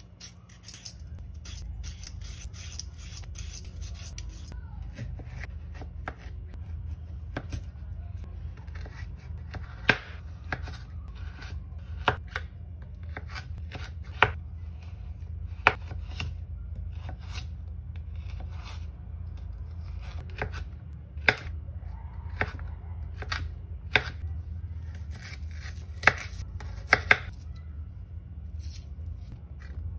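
Kitchen knife cutting a raw carrot into sticks on a bamboo cutting board. A quick run of slicing strokes at the start is followed by single sharp knocks of the blade on the board, every second or two.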